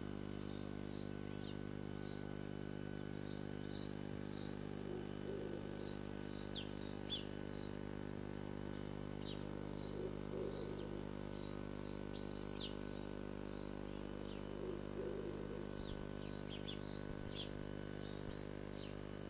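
Short, high bird chirps in quick clusters every second or two, heard from inside a nest box over a steady electrical hum. A few soft rustles of nest material come and go as the great tit moves in the box.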